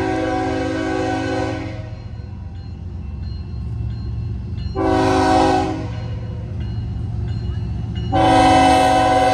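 BNSF freight locomotive's multi-note air horn. A long blast ends about two seconds in, a short blast sounds about five seconds in, and another long blast starts near the end, over the steady low rumble of the approaching diesel train. The long-short-long pattern is the close of a grade-crossing horn signal.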